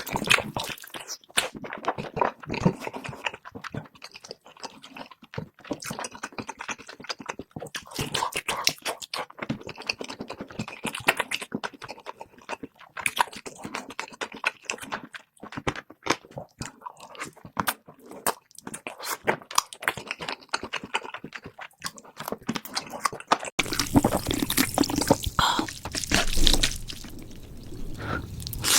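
Close-miked mukbang eating sounds sped up to double speed: quick crunching bites and wet chewing, a dense patter of irregular crackles. In the last five seconds the eating noise turns louder and denser.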